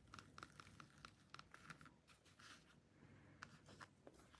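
Near silence with faint scratchy rustling and small ticks as fingers handle and rub the macrame cord of a slipper strap.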